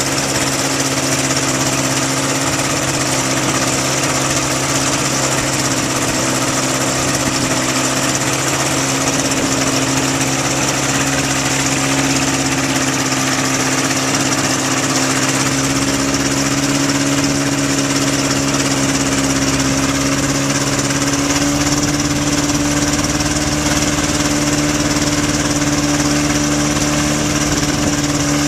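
Kitfox light aircraft's engine running steadily on a ground run, its speed creeping up slightly in the second half.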